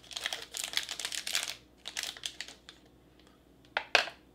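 Foil wrapper of a chocolate bar crinkling as it is peeled open, then two sharp clicks near the end as chocolate pieces are set down on a plastic tray.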